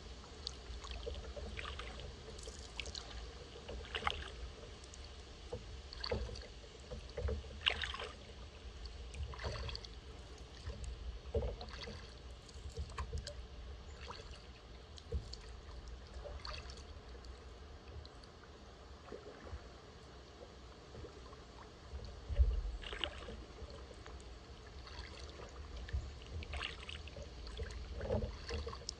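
Kayak paddling on calm water: the paddle blades dip and splash, with drips, every second or two, over a steady low rumble.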